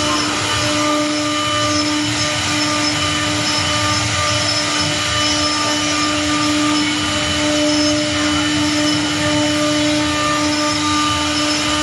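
The twin 3.5 kW air-cooled spindles of a double-head CNC wood router running together with a steady whine while their bits rout grooves along wooden planks, with the rushing noise of the cut.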